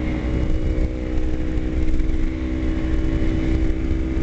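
Kawasaki Ninja 250 motorcycle's parallel-twin engine running steadily at cruising speed, heard from the rider's seat, with wind rumble on the microphone.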